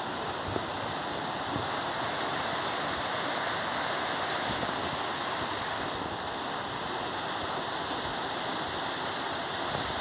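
Steady, even rush of running water, unbroken throughout.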